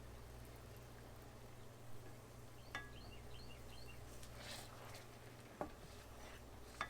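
Quiet kitchen room tone with a steady low electrical hum. A few light clicks and taps sound, and a short run of faint high bird chirps comes about three seconds in.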